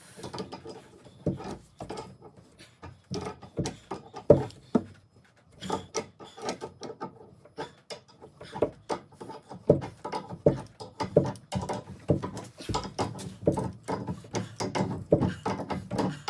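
Rapid, irregular metallic clicks and knocks of an adjustable wrench working on brass pipe fittings as the nuts on a shower diverter valve are tightened.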